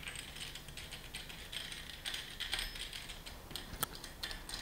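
Metal screw fastenings with washers under a Delrin stake being tightened by hand against a bench vise: faint scattered clicks and scrapes, with one sharper click about four seconds in.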